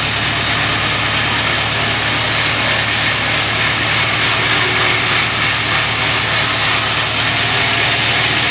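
Wood-ripping bandsaw machine running steadily under power, a continuous machine drone with a low hum and a dense hiss that do not change.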